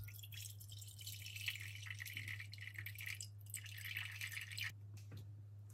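Water poured in a thin stream into a glass mixing bowl, splashing steadily. The stream breaks briefly about three seconds in and stops a little after four and a half seconds, followed by a few faint clicks.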